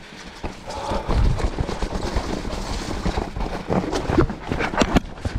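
Specialized Turbo Levo electric mountain bike clattering down a wet, rooty trail: tyres and frame rattling and knocking over roots and mud under a low wind rumble on the camera. The knocks come thicker and sharper in the second half, with several hard hits near the end.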